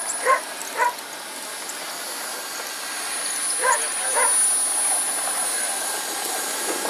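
Steady whine of a small RC model jet turbine. Over it a dog barks four times, in two quick pairs: one near the start, one about three and a half seconds in.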